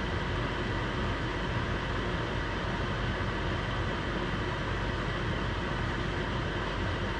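Swiss chard sizzling and steaming in a stainless-steel skillet on an electric stove: a steady, even hiss.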